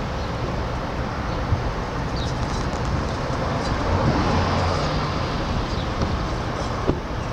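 Steady outdoor background noise: a low rumble with a hiss over it, swelling a little about four seconds in, with a couple of faint clicks.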